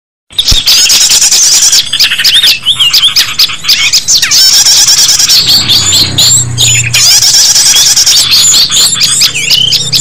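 Bird-lure recording of small songbirds calling: a loud, dense, nonstop tangle of overlapping chirps, trills and squeaky notes, played to draw small birds in. A low steady hum joins about halfway through.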